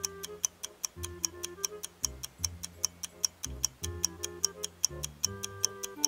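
Countdown timer sound effect: a clock ticking steadily at about four ticks a second, over a light looping background tune with a bass line and short keyboard notes.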